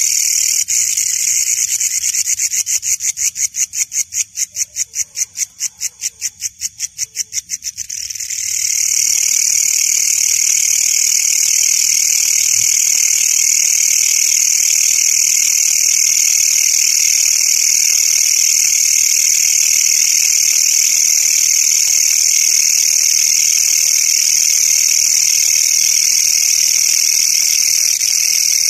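Loud, high-pitched night insect song from katydids or crickets. For the first eight seconds it comes in rapid, even pulses, several a second, then it runs on as a steady, unbroken buzzing trill.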